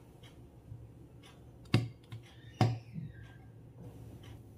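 Snap-lock clips on the plastic lid of a glass food container being unclipped: two sharp clicks about a second apart, with a few lighter ticks and handling of the container.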